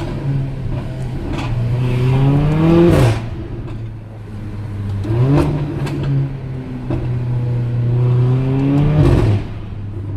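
Car engine accelerating twice, each time rising and holding a high note for a few seconds before dropping off sharply, about three seconds in and again near the end.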